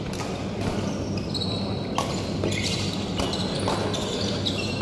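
Badminton court sounds: sharp cracks of rackets hitting shuttlecocks and short squeaks of shoes on the court floor, over a steady low hum.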